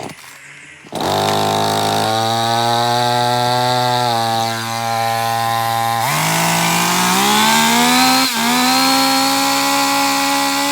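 Chainsaw engine starts about a second in and runs steadily at a lower speed. About six seconds in it revs up and holds high speed, with a brief dip midway through the rise.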